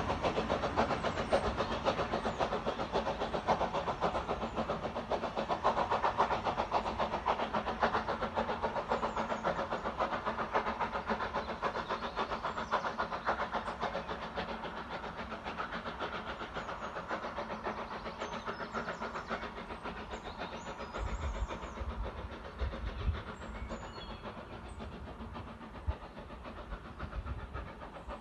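Steam locomotive Douglas and its train running away along the line, the sound fading steadily into the distance.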